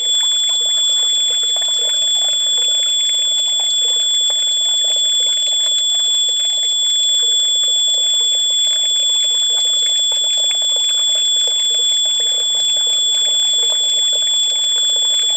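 Battery-backup sump pump system's alarm sounding one continuous high-pitched tone, over steady water running and splashing into the sump pit from a garden hose. The alarm comes with the pit filling while the main pump is unplugged, which sets the backup pump running.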